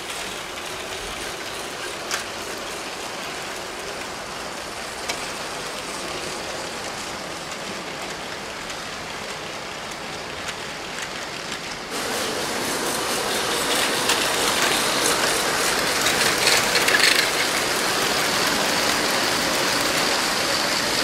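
LEGO trains running on plastic LEGO track: a steady whirring rattle from the small train motors, gears and wheels, with two sharp clicks about two and five seconds in. It gets louder and closer about twelve seconds in.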